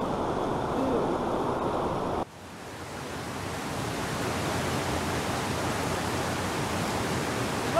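Steady rushing noise of flowing creek water. It drops off abruptly about two seconds in and swells back to the same steady rush.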